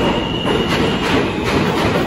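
R160 subway train moving past the platform, its wheels rumbling and clacking repeatedly over the rail joints, with a thin high whine that stops about a second in.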